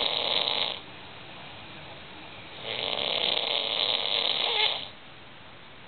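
A man snoring in his sleep: one snore tails off within the first second, and a second snore of about two seconds comes around the middle, with quieter breathing between them.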